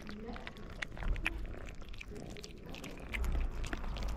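Kittens chewing and smacking on chunks of wet cat food, with many quick, sharp little clicks of eating, over a low rumble that gets louder about a second in and again near the end.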